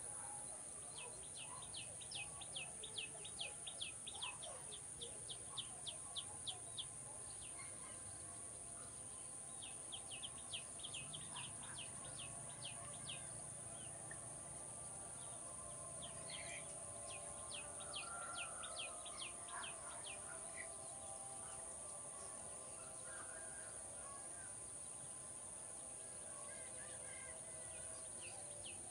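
A bird repeating short, high chirps at about four a second in three long bouts, over a steady high hiss, with fainter calls of other birds in between.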